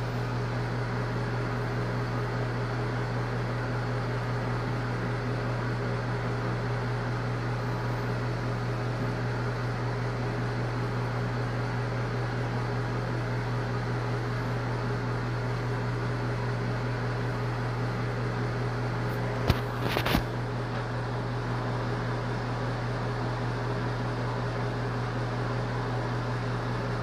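A steady low machine hum with a hiss over it, like a ventilation fan running. About twenty seconds in, a couple of short knocks.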